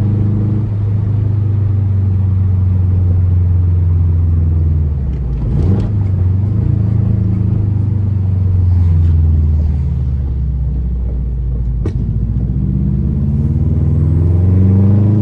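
2004 Subaru WRX's turbocharged EJ flat-four running through an Invidia exhaust while driving, its rumble falling and rising in pitch with the throttle and climbing as it accelerates near the end. A sharp exhaust pop cracks out about twelve seconds in.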